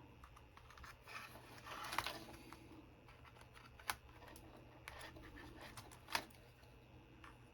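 Faint scraping and a few sharp clicks of a screwdriver tip working against the keyboard's case and battery cell, prising at a cell stuck down on an adhesive pad.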